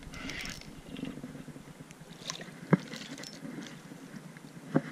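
Light water splashing at the surface as a hooked small fish is brought in beside a dock, with two sharp knocks, one just past the middle and one near the end.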